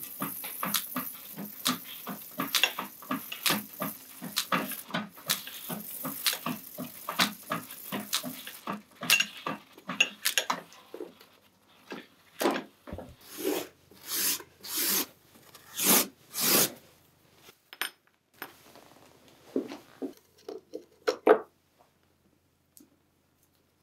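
Flexible-shaft rotary tool with a small wire wheel brushing a small metal knife part: scratchy strokes in quick succession for about ten seconds, then slower, louder separate strokes. A few light clicks follow near the end as the part is handled.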